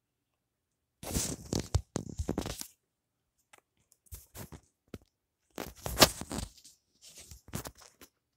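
Rustling and scraping handling noise on the recording device's microphone as it is moved about, in several loud bursts; the loudest comes about six seconds in.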